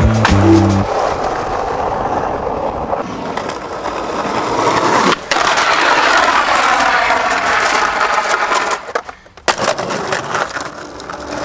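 Skateboard wheels rolling on pavement, with several sharp clacks of the board popping and landing. About five seconds in comes a long scraping slide along a painted concrete ledge.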